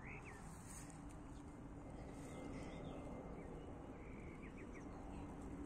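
Faint outdoor background: a low, steady rumble with a few short, high bird chirps scattered through it.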